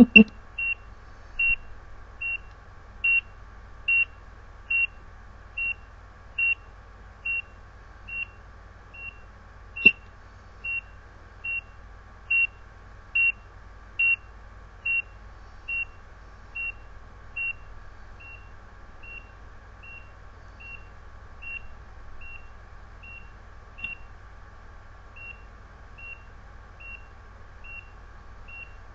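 ECG patient monitor's heartbeat beep, a short high tone with every detected heartbeat, steady at about 73 a minute. The beeps grow much fainter from about two-thirds of the way in, and a single click sounds about ten seconds in.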